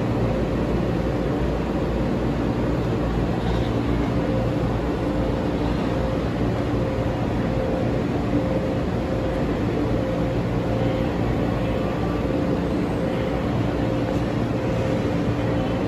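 Steady low mechanical drone with a few faint, steady hum tones running under it, unchanging throughout.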